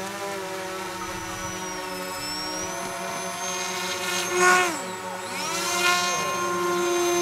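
Whine of a radio-controlled model's motor and propeller, its pitch wavering; a little past the middle it peaks in loudness and the pitch drops sharply, then climbs back up.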